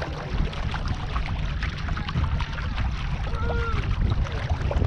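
Water splashing and slapping against the hull of a canoe under way, with many short splashes over a steady low wind rumble on the microphone.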